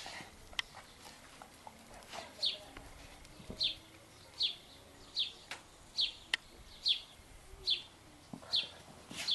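A garden bird calling over and over, a short high chirp that falls a little in pitch, repeated about once a second, with a few faint knocks in between.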